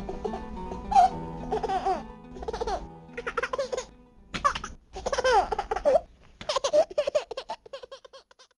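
High-pitched laughter in repeated bursts, over background music that drops out about three seconds in. The laughter then goes on alone, fading and stopping near the end.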